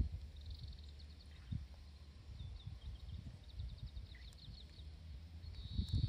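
A small bird chirping in quick runs of short high notes, several times, over a low uneven rumble.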